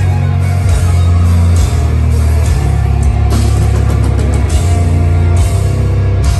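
Deathcore band playing live at full volume: heavily distorted, down-tuned guitars and bass over a drum kit, with cymbal crashes every second or so.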